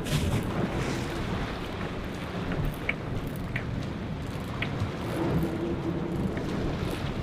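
Steady rumble and wash of a sport-fishing boat at sea: engine, wind and water against the hull. A few faint short chirps sound about three to five seconds in.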